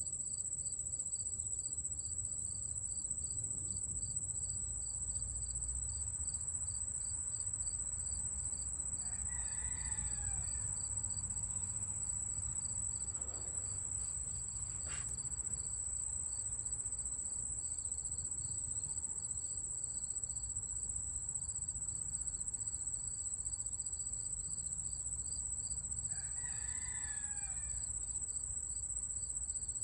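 Outdoor insect chorus: a continuous high-pitched trill with a steady pulsing chirp beneath it. A more distant call rises and falls twice, about ten seconds in and near the end.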